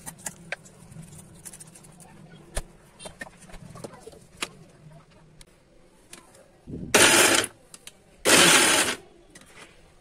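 Electric mixer grinder pulsed twice, each run lasting about a second, chopping raw vegetables in its steel jar. Before the pulses there are light clicks and knocks.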